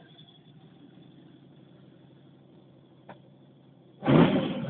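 1990 Ford Mustang GT's twin-turbo 5.8-litre Windsor V8 idling low and steady, with a single click about three seconds in. Near the end the throttle is blipped and the engine revs up sharply and loudly.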